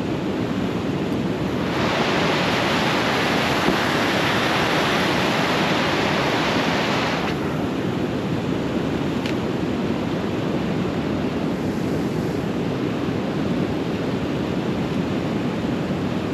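River water roaring steadily. About two seconds in, a brighter hiss joins it and then cuts off suddenly some five seconds later.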